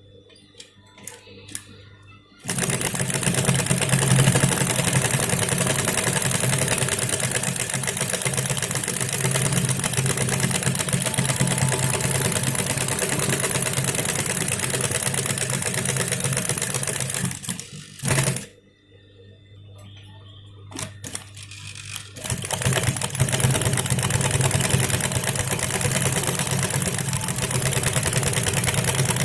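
Industrial high-speed sewing machine with a buttonhole attachment, running and stitching with a steady fast clatter. It starts about two seconds in and stops for a few seconds a little past halfway, with a short burst as it stops, then runs again.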